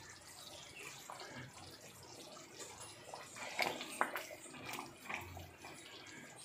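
Wooden spatula stirring thick duck roast gravy in a pan, with wet sloshing and a couple of sharp knocks against the pan about halfway through; the gravy bubbles faintly on the flame.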